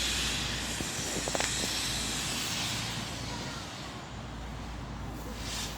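LMS Black Five steam locomotive 44871 venting steam, a steady hiss that dies away about three to four seconds in.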